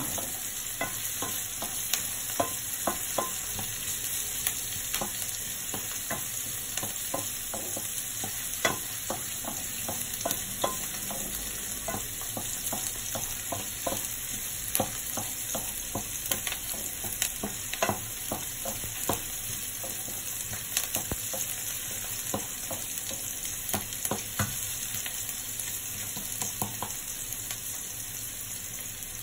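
Diced onion sizzling in hot oil in a frying pan, with a steady hiss. A wooden spatula stirs it, scraping the pan and knocking against it in irregular taps.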